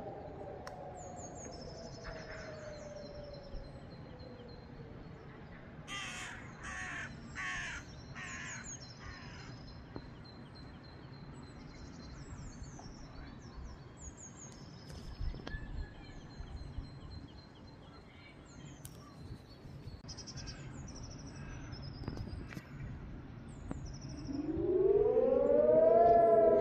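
Helin HES 1200 and HES 600 civil-defence sirens winding down, their tone falling and fading over the first few seconds. Small birds chirp, and a crow caws a few times about six to nine seconds in. Near the end the sirens start up again, the pitch rising into a steady tone, much louder.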